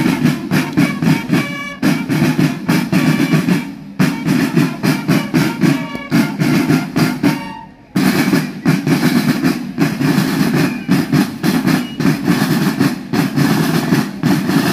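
A marching war band's snare drum line playing a fast cadence with rolls, broken by short pauses about four and eight seconds in.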